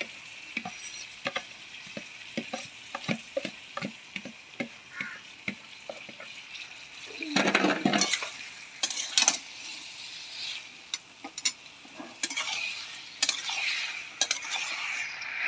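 Marinated mutton and fenugreek leaves sizzling as they go into hot oil in a pan, with a metal spatula scraping and clicking against the bowl and pan. A louder rush of sizzling and scraping comes about halfway through, and the spatula stirs the meat near the end.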